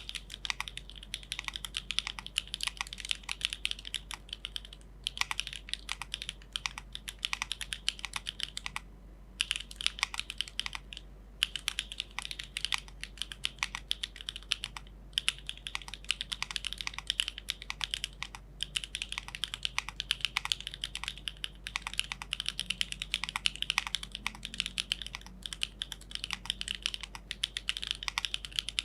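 Fast continuous typing on a Geonworks F1-8X V2 mechanical keyboard with a polypropylene plate, SWK Dragon Ghost switches and Keykobo Tai Ji keycaps: rapid, crisp keystroke clacks, broken by short pauses every few seconds.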